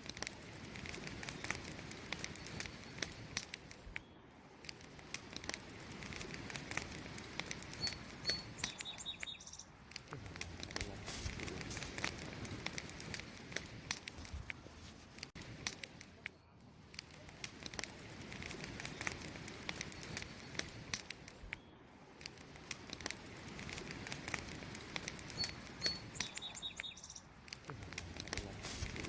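Wood campfire crackling and popping with a dense run of small snaps over a soft rush of burning. A brief high chirp, like a bird's, comes twice.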